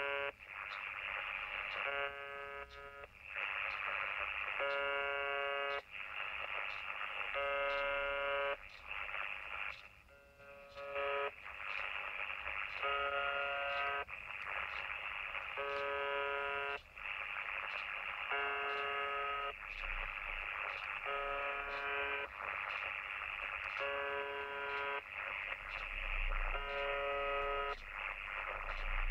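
Shortwave radio station UVB-76, 'The Buzzer', received on 4625 kHz upper sideband through a CommRadio CR-1 receiver: a harsh buzz about a second long, repeating roughly every three seconds, over steady shortwave static. The buzz fades down briefly about ten seconds in.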